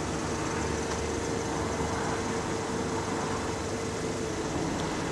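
Power-operated convertible soft-top mechanism running with a steady whine as the fabric roof folds down into the boot, over the car's idling engine.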